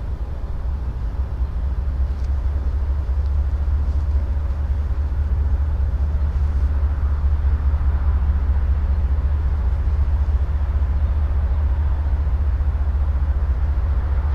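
CSX freight train rolling past, a steady low rumble that slowly grows louder.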